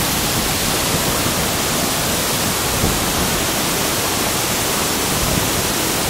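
Waterfall in flood, a heavy mass of water pouring down into churning white water, making a loud, steady rushing noise.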